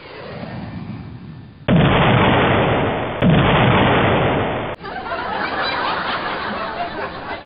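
Rocket-propelled grenade launcher sound effects: a rising rocket whoosh, then two loud explosions about a second and a half apart, each fading away. From about five seconds in, a crowd laughing.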